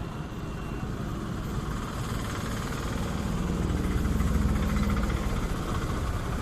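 An engine running with a low rumble that grows louder around the middle, then eases.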